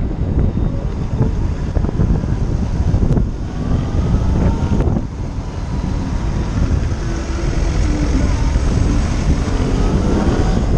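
Motorcycle riding through city traffic, heard from a GoPro on the bike: wind buffeting the microphone over the low rumble of the engine. Faint rising whines come in partway through and near the end, and the sound dips briefly about three and five seconds in.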